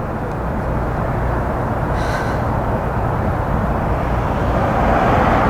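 Strong wind buffeting the microphone in a heavy, low rumble that grows louder toward the end.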